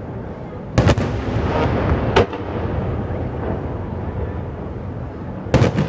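Fireworks bursting: a sharp double bang about a second in, a single bang about two seconds in and another double bang near the end, over a continuous low rumble.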